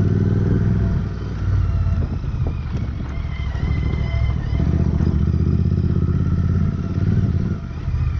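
Royal Enfield Interceptor 650's parallel-twin engine running at low revs on a rough dirt descent. The engine swells and eases with the throttle, with scattered rattles and clicks from the bike over the stones.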